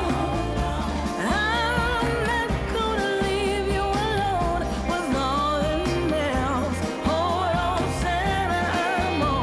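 Pop-style Christmas music: a wavering melodic lead over a steady bass line.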